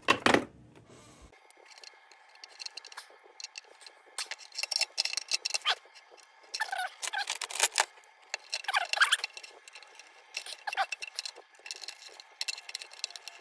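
Small metal lantern parts clicking and scraping as they are handled and fitted together, in irregular short taps with a few longer bursts of scraping.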